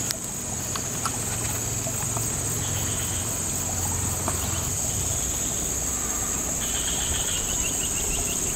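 Steady high-pitched insect chorus, with a second, lower insect trill coming and going and clearest near the end.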